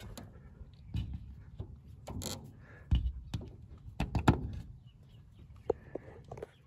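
Cable-pulled wooden pop door of a chicken coop being opened: a string of knocks, clicks and rattles from the door, cable and wire mesh, the sharpest about four seconds in. A few short chicken cheeps come near the end.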